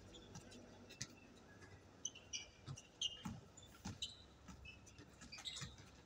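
Faint, distant basketball game on an outdoor court: a ball bouncing in irregular thuds, mixed with short high squeaks of sneakers on the court surface.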